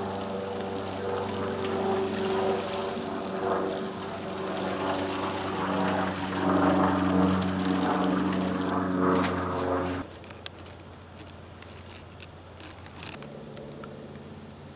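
A hot steel knife blade quenching in a pan of oil, bubbling and sizzling over a steady humming tone. The sound stops abruptly about ten seconds in, leaving quiet with a few faint ticks.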